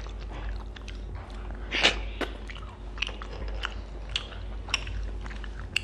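Cooked crawfish and lobster shell being cracked and pulled apart by hand, with chewing: scattered sharp cracks and clicks, the loudest about two seconds in.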